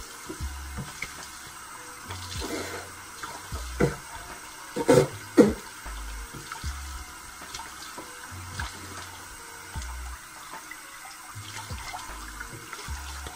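Bathroom tap running into a sink while water is splashed onto the face with cupped hands to rinse off a face scrub, with two louder sudden sounds about five seconds in.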